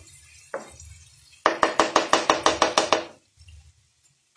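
A spatula rapidly tapping and scraping against a frying pan of prawns being stir-fried: about a dozen quick strikes in a second and a half, each with a short metallic ring.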